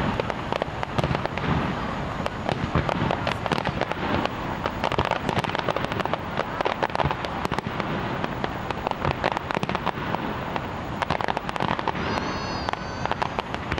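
Aerial fireworks bursting: a dense, continuous run of bangs and crackles.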